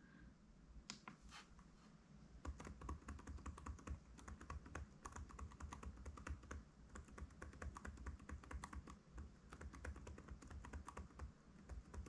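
Faint, rapid tapping on a Lenovo Legion 5 laptop's keyboard: the F2 key pressed over and over, several times a second, during power-on to enter the BIOS setup. A couple of taps come about a second in, and steady tapping begins at about two and a half seconds.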